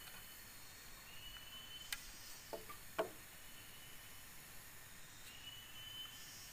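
Quiet forest background with a high, steady call of under a second that comes back every few seconds. A few short, light knocks and clicks from bamboo and sticks being handled on leaf-littered ground, the loudest about three seconds in.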